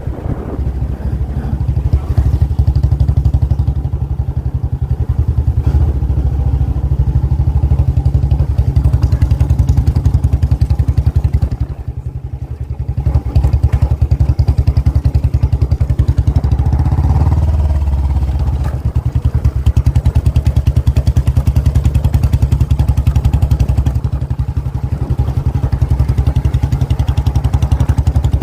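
Royal Enfield Bullet motorcycle's single-cylinder engine running, a fast, even beat of exhaust pulses that dips in level briefly about twelve seconds in.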